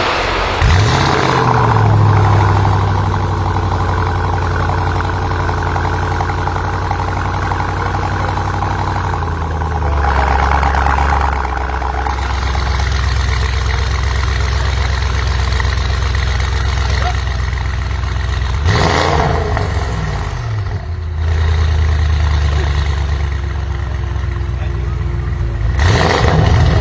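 Audi RS6 Avant C8's twin-turbo V8 running through a Capristo exhaust with the particulate filter deleted, a steady engine note whose pitch rises and falls several times as it is revved, with sharper rev sweeps near the middle and near the end.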